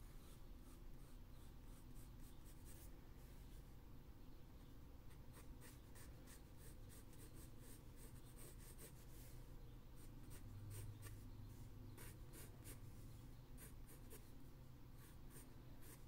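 Pencil scratching faintly on drawing paper in a run of short sketching strokes.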